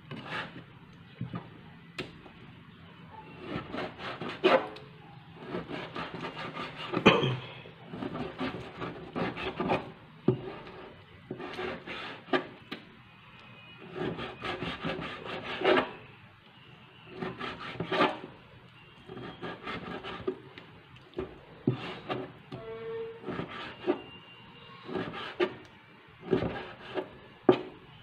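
Kitchen knife slicing raw pork on a plastic cutting board: repeated scraping strokes through the meat, with the blade knocking sharply on the board now and then.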